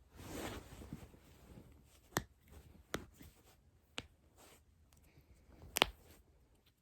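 Spinal joints cracking during a chiropractic manipulation: sharp single pops about two, three and four seconds in, and a louder double pop near the end. A soft rustle of clothing or bedding comes at the start.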